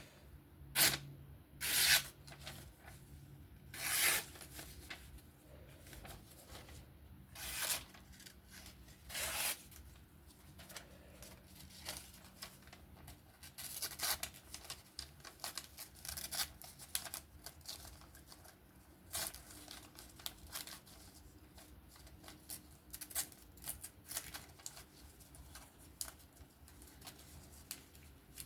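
Freshly freehand-sharpened folding knife slicing through paper: a series of short slicing strokes, five louder cuts in the first ten seconds, then softer, quicker ones.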